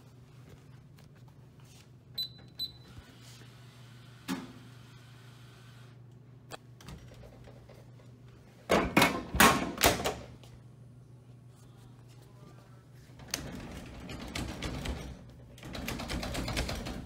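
Snack vending machine: two short keypad beeps, a click, then about a second and a half of loud knocks and clatter. Near the end comes a few seconds of rattling as the machine is shaken to dislodge a bag of chips hanging on the edge of its coil.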